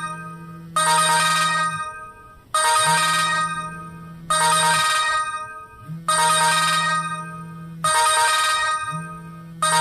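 A downloaded musical ringtone playing through a Samsung GT-E2121L phone's speaker for an incoming call. The same short phrase repeats about every second and three-quarters, each starting with a sudden bright, loud note that fades, over a low held tone.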